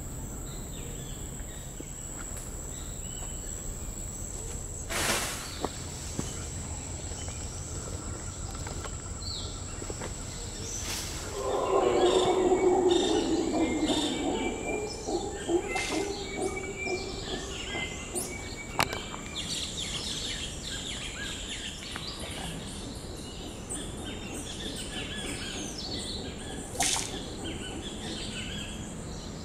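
Mantled howler monkeys roaring in the canopy: a loud, deep, rasping chorus lasting a few seconds, starting a little before the middle and fading off. Birds chirp and call in the second half, over a steady thin high-pitched drone.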